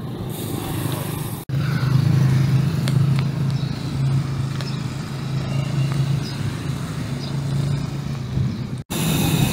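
Steady low drone of motor traffic on a road, with a hiss over it.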